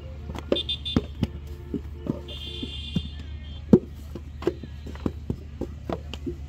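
Wooden brick mould and wet clay being knocked against the sandy ground while a clay brick is moulded by hand: a run of irregular sharp knocks, the loudest a little under four seconds in, over a low steady hum. A high tone sounds briefly twice in the first three seconds.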